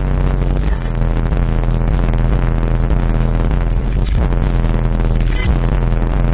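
A Sound Splinter RL-p 12-inch subwoofer in a ported box tuned to 32 Hz playing bass-heavy music at high excursion. The deep bass notes are loud and buzzy, and they shift in pitch a few times.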